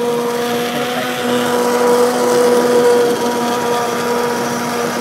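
Stick (immersion) blender running steadily at one constant pitch, puréeing thick split pea soup.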